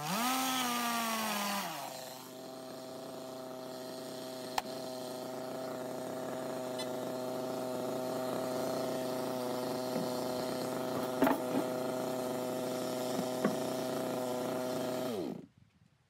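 Gasoline chainsaw finishing a cut through a thick ginkgo log. The engine runs high for the first couple of seconds, then drops to a steady idle, with a few sharp knocks. Near the end it winds down and shuts off.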